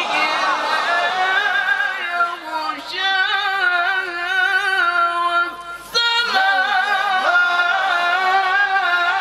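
A man reciting the Quran in the melodic tajweed style, drawing out long held notes with wavering ornamentation and a short break about six seconds in.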